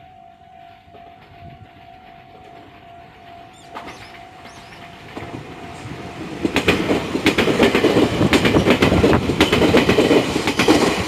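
Meitetsu 3150 series electric train, coupled sets, approaching and passing over a level crossing. It grows loud about six seconds in, with a rapid clatter of wheels over the rail joints and crossing. A faint steady tone from the crossing warning signal is heard in the first seconds.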